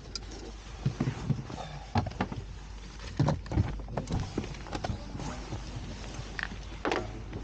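A series of irregular knocks and taps, hard objects being handled or set down, over a steady low hum.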